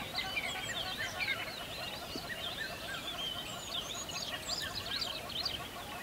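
A dense chorus of many birds calling and singing at once: short chirps, whistles and quick repeated notes overlapping without a break.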